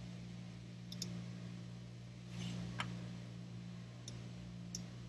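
Faint computer mouse clicks, a close pair about a second in and then single clicks spread over the next few seconds, over a steady low hum.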